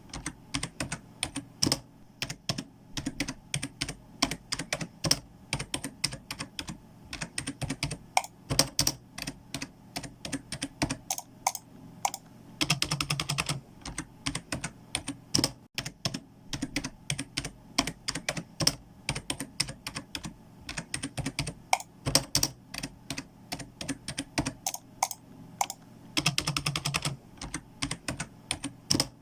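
Typing on a computer keyboard: irregular keystrokes with short pauses. Twice, at about 13 seconds in and again near the end, there is a short dense run of rapid clicks.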